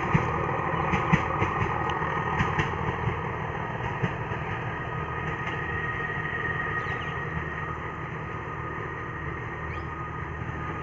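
ZDM-4A narrow-gauge diesel locomotive running steadily, with a low even hum and a few sharp clicks and knocks in the first three seconds that then die away.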